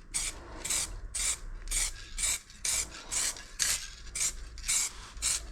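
Sandpaper being rubbed back and forth over a scratched mountain-bike rim to prepare it for new paint, in quick even strokes about two a second.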